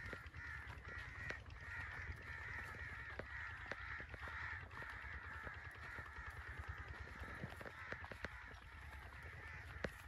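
A flock of birds calling and chattering, a faint, continuous wash of many overlapping calls, with light footsteps and a low rumble underneath.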